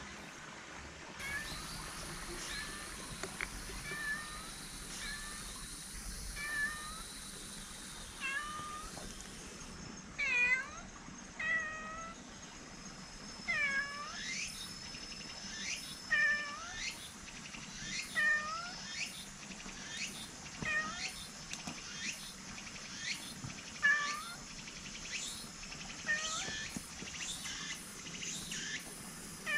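Silver tabby cat meowing: a long run of short meows, roughly one a second, growing louder from about ten seconds in as it comes closer.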